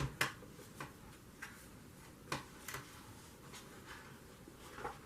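Faint, irregular light clicks and taps from paper sheets and craft tools being handled on a work table.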